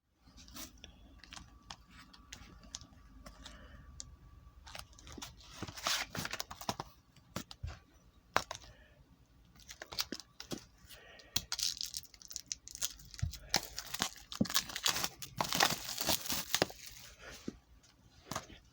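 Packaging of a DVD/Blu-ray set being torn open and crinkled by hand, in repeated tearing bursts mixed with sharp clicks and taps from handling.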